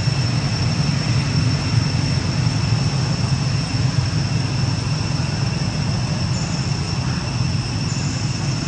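Steady, unbroken background noise: a low rumble with a constant high-pitched whine over it. No distinct animal calls stand out.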